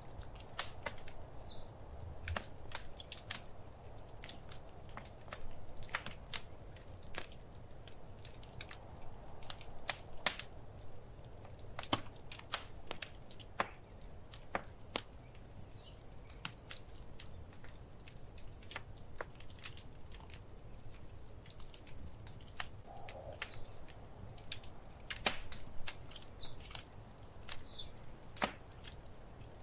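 Wood fire crackling in a fireplace: irregular sharp pops and snaps, several a second with a few louder ones, over a faint low rumble of the flames.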